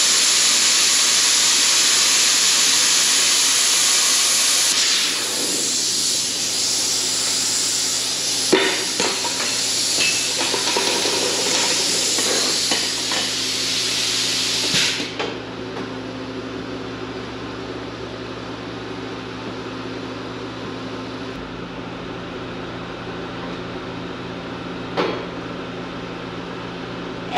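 Hypertherm Powermax600 plasma cutter cutting a round hole through quarter-inch steel plate: a loud, steady hiss of the arc and air, with a few sharp clicks partway through, that cuts off suddenly about fifteen seconds in. A quieter steady hum follows, with a single knock near the end.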